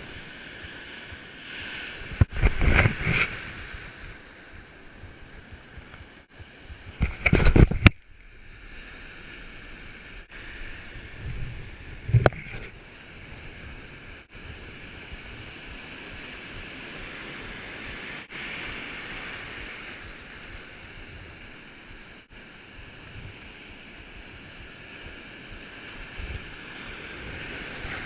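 Surf washing on the shore with wind noise, swelling into two loud rushes a few seconds apart near the start, with a single sharp knock later.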